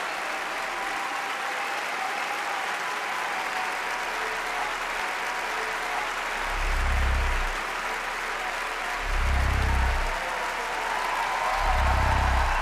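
Concert audience applauding, with faint held tones underneath. From about six seconds in, deep bass pulses set in as the music starts, three of them about two and a half seconds apart.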